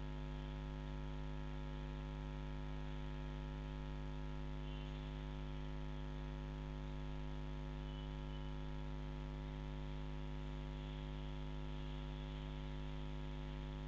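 Steady electrical mains hum with its evenly spaced overtones, unchanging throughout.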